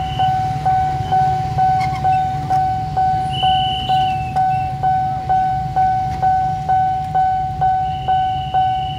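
Railway level-crossing warning bell ringing, about two strikes a second, each ringing on into the next, warning of an approaching train. A low rumble of idling motorcycles runs underneath.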